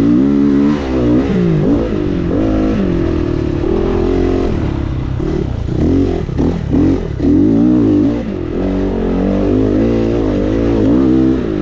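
GPX FSE 450R four-stroke dirt bike being ridden, its engine revving up and down over and over as the throttle is worked.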